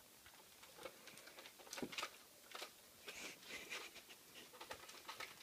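Faint, scattered plastic clicks and rustling of a Nerf blaster being handled and reloaded with foam darts.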